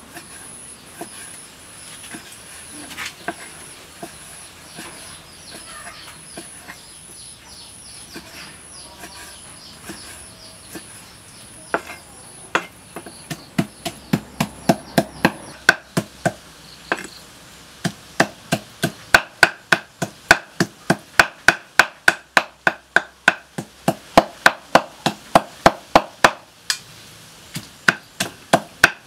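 Cleaver chopping raw pork on a wooden cutting board. Light, scattered cuts give way about twelve seconds in to a fast run of hard chops, about three a second. A high chirp repeats steadily until about halfway.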